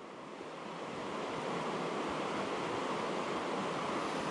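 Steady rush of river water tumbling over a rocky riffle, swelling a little over the first second and then holding even.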